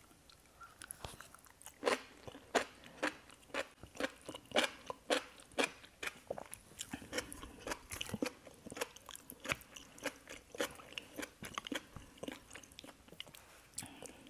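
Close-miked chewing of enoki mushrooms in gochujang sauce: a run of sharp, wet mouth clicks, about two a second, starting about two seconds in.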